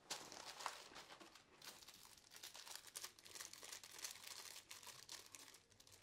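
A sweet wrapper being slowly unwrapped by hand, crinkling and crackling continuously with small irregular snaps.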